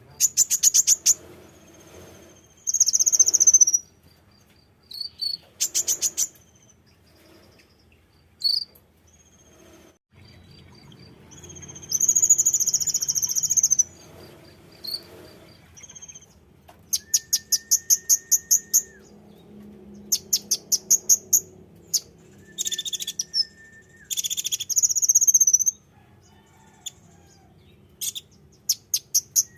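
Konin (kolibri ninja) sunbird song used as a lure call: bursts of very high, sharp chirps in quick series of about five notes a second, alternating with longer buzzy trills, separated by short pauses.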